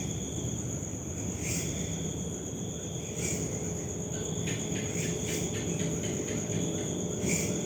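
Crickets chirping steadily, a high continuous trill with a louder pulse about every two seconds.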